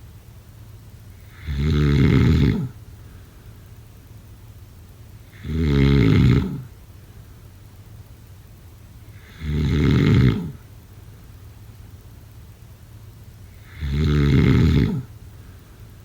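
A person snoring: four loud, low buzzing snores, one about every four seconds, each lasting about a second, with quiet between them.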